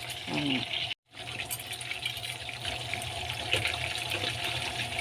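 Tamarong fish frying in hot oil in a pan: a steady sizzle, broken by a brief silence about a second in.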